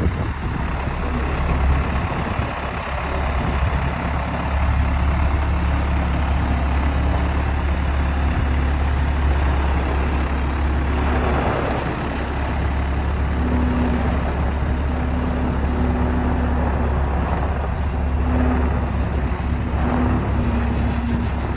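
Skid steer loader's engine running steadily. In the second half a low tone pulses on and off over it.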